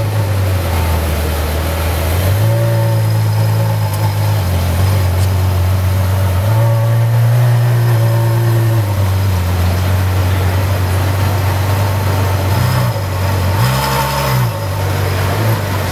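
Ferrari F12berlinetta's naturally aspirated V12 running at idle, its pitch rising gently twice, then a short blip of the throttle near the end as the car pulls away.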